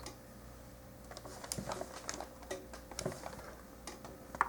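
Small plastic model-kit parts clicking and tapping lightly as they are handled and pressed together: a scattered run of short clicks.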